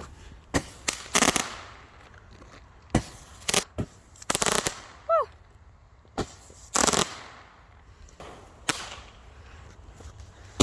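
Fireworks going off: about a dozen sharp bangs at uneven intervals, some single reports and some in quick crackling clusters.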